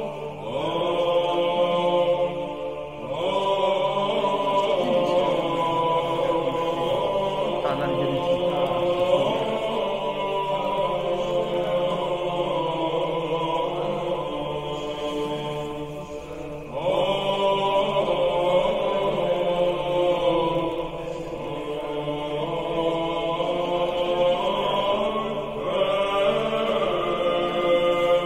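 Slow choral chant, voices holding long notes in long phrases, with short breaks between phrases about three, sixteen and twenty-five seconds in.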